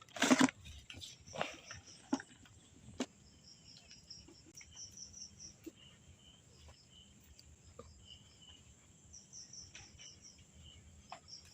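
Insects chirping in rows of short, high pulses, with a few scattered sharp clicks and one brief loud burst of noise right at the start.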